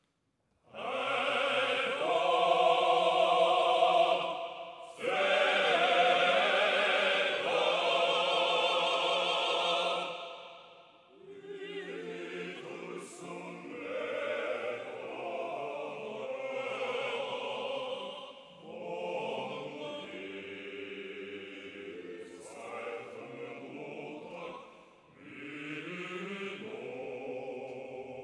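Unaccompanied male choir singing a Mongolian song. The singing comes in loud about half a second in, pauses briefly near five seconds, and turns softer after about ten seconds, continuing in phrases.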